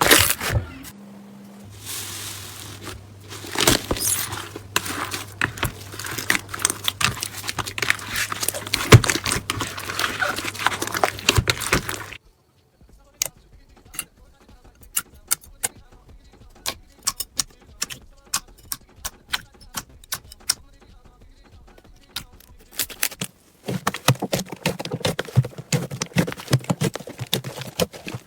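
Slime being squeezed and poked by hand, giving runs of sharp crackling clicks and pops. The clicks thin out to scattered single pops for about ten seconds in the middle, then come thick again near the end.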